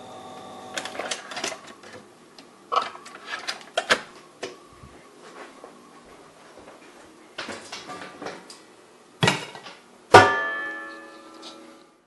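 Plucked-string music: scattered plucks and strums, then a loud chord about ten seconds in that rings out and fades over nearly two seconds. A steady held tone before it stops within the first second.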